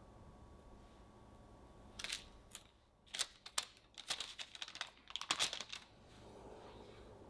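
A round metal cookie cutter pressed and twisted through rolled butter cookie dough on parchment paper: a run of crisp crackles and ticks starting about two seconds in and stopping near six seconds.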